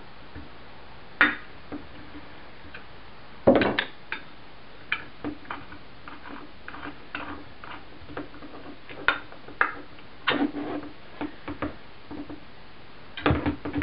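Irregular clicks and knocks of hand tools on a flywheel puller and the metal engine case of a small RC-car engine being handled while its flywheel is pulled, the loudest knock about three and a half seconds in.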